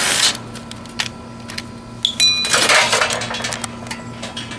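Metal parts of an air-conditioner condenser cabinet being handled: scraping and rattling with scattered clicks, two louder scrapes at the start and near the middle, and one brief ringing clink of sheet metal about two seconds in.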